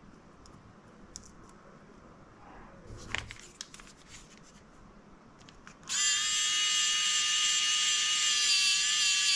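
A pen-style electric precision screwdriver drives a small screw into a drone's circuit board, its motor giving a steady high whine from about six seconds in. Before it starts there are a few light clicks of small tools being picked up.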